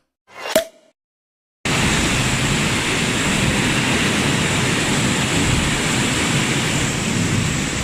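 Heavy rain driven by strong wind: a steady, even hiss of downpour that cuts in suddenly about a second and a half in. Just before it, a short last note of intro music, then a moment of silence.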